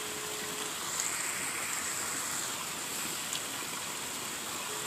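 A steady rushing hiss of outdoor background noise with a high, even whine above it, and one faint tick about three seconds in.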